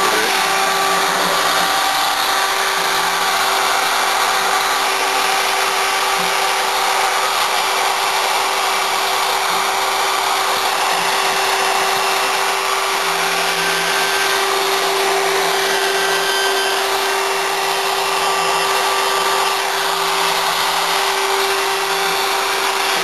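CNC router spindle running steadily as the bit cuts pockets into a wooden panel, a constant whine over the hiss of cutting.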